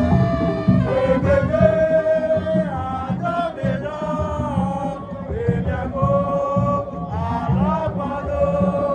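Borborbor music: singing over a steady beat of drums.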